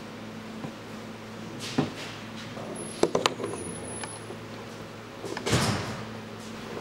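Handling sounds of a pre-filled transparent oil filter being fitted and screwed onto its housing: a knock about two seconds in, a couple of sharp clicks around three seconds, and a short scraping rasp near the end, over a faint steady hum.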